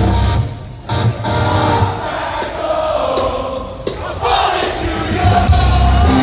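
A heavy rock band playing live through a large PA, mixed with crowd voices. The music drops away briefly about half a second in, then comes back.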